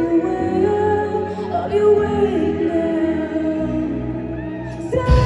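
Live indie pop band with a female lead vocal singing a slow, held line over sustained guitar and keyboard chords. Near the end the full band, drums included, comes in louder.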